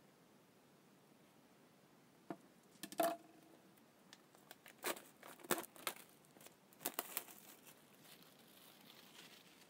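Packaging being torn open: a series of sharp crinkles and tears of clear plastic wrap and paper from about two seconds in to seven and a half, then a faint rustle.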